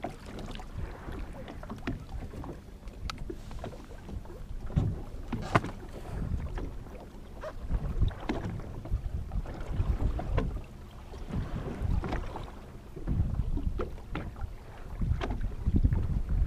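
Wind buffeting the microphone on a fishing boat, an uneven low rumble that swells and fades, with scattered sharp knocks.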